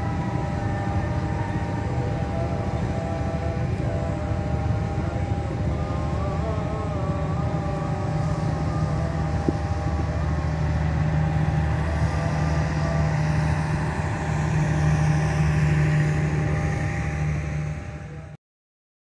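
Electric commuter train running past: a steady rumble from the wheels on the rails with a whine of steady and wavering tones over it. It fades out and cuts to silence near the end.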